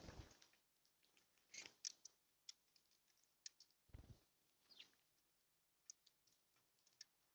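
Birds feeding at a bird feeder: scattered faint taps and clicks, with a couple of short high chirps. There is a soft thump about four seconds in.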